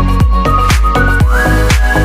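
Electronic dance music with a steady kick-drum beat of about two beats a second and sustained synth tones, one sliding up in pitch near the middle.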